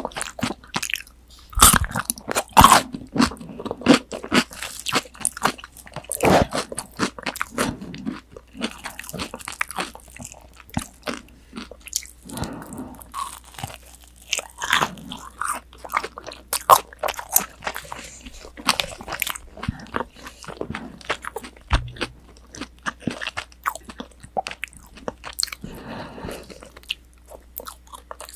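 Close-miked crunching and chewing of crispy breaded tonkatsu (fried pork cutlet): a steady run of sharp crunches and chews, the loudest a few seconds in.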